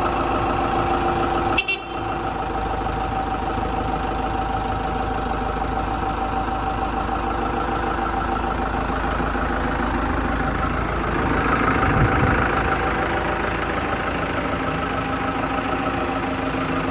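A vehicle engine idling steadily, with a short drop about two seconds in and a brief rise in revs around twelve seconds in.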